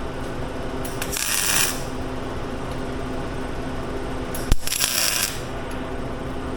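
Two short tack welds joining the steel rims, each a brief hiss of under a second, the second opening with a sharp click, over a steady low hum.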